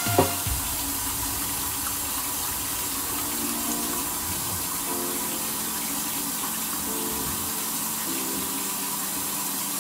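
Water running steadily from a tap into a sink, with a brief knock just after the start.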